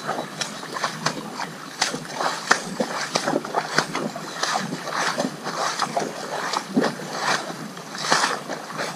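Horse pawing at a muddy puddle with a front hoof, splashing water and mud in irregular strokes.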